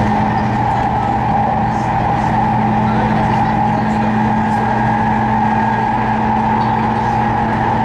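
Running sound inside a JR Kyushu 811 series electric train's motor car (KuMoHa 810-1) at steady speed: the internally fanned traction motors hum with a steady whine over the rumble of wheels on rail.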